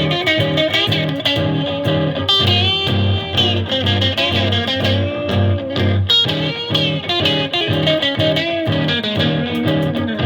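Aria Pro II Les Paul-type electric guitar with both humbuckers on, played straight into a Marshall JCM2000 amp on a crunch drive setting. A looped rhythm part cycles G minor 7 and E-flat 7 chords, and an improvised lead line with bent notes plays over it.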